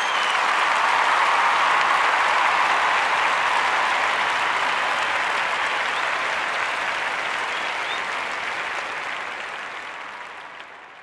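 Crowd applause and cheering, swelling in the first couple of seconds and fading out near the end, with a couple of short whistles.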